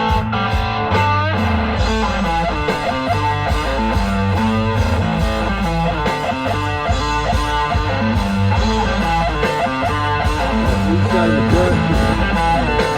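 Background rock music led by electric guitar over a steady bass line.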